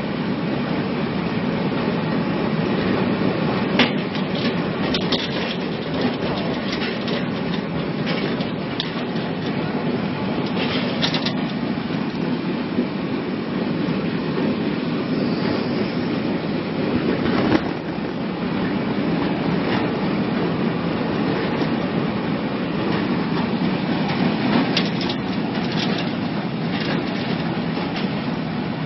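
Electric vegetable strip-cutting machine running steadily, with a few sharp knocks scattered through.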